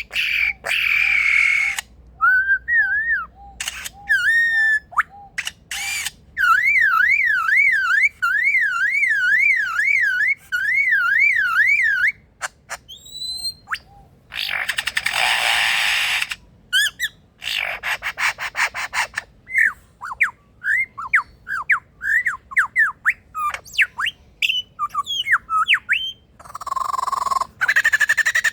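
Male superb lyrebird singing a varied mimicry medley: short whistled glides, noisy bursts, runs of rapid clicks and a string of falling whistles. In the middle comes a warbling tone that swings evenly up and down, about two times a second, for around six seconds.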